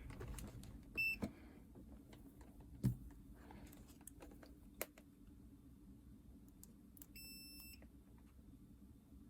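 Digital multimeter's continuity buzzer beeping as its probes touch the board: a short high steady beep about a second in and a longer one near the end, with a few light clicks of the probes in between. Each beep means the tested point conducts.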